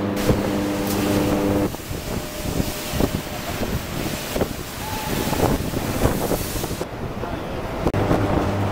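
Electric arc furnace running: a steady electrical hum of several even tones gives way, just under 2 s in, to an uneven crackling noise with many irregular sharp cracks. The hum returns near the end.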